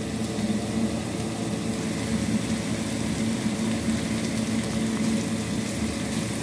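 Stir-fry of bitter gourd, tempeh and anchovies sizzling in a wok on a gas burner, a steady frying hiss with a steady low hum underneath.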